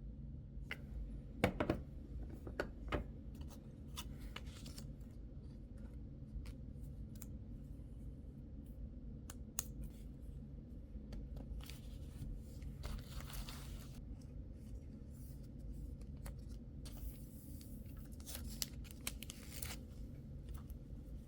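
Keyboard packaging being opened by hand: scattered clicks and taps, with longer stretches of tearing and rustling about halfway through and again near the end.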